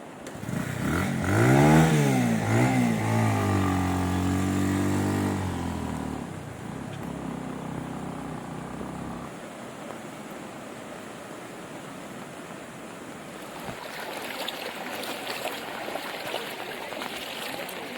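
A small vehicle engine revs up and down, loudest about two seconds in, then fades away over the next few seconds. Near the end a rushing, crackling noise rises.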